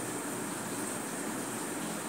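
Sliced onions frying in hot oil in a pan for birista, a steady sizzle.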